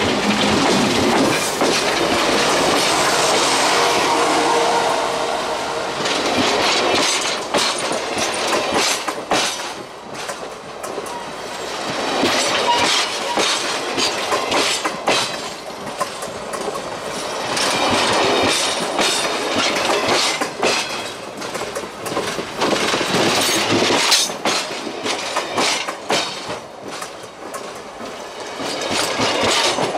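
Railroad cars rolling directly overhead, heard from between the rails: steel wheels grinding on the rails with sharp clickety-clack clacks as the wheel sets cross rail joints. The sound swells and fades several times as successive cars and their trucks pass.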